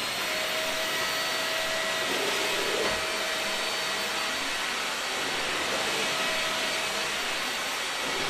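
Vacuum cleaner running at full speed: a steady rush of air with a high motor whine on top.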